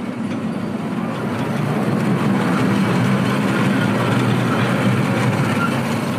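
A small toy train runs on its narrow track through a short concrete tunnel. The steady running noise swells from about two seconds in, while the train is inside the tunnel.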